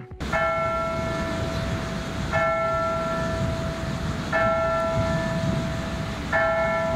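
A large bell tolling four times, about two seconds apart, each strike ringing on until the next, over a steady low background rumble.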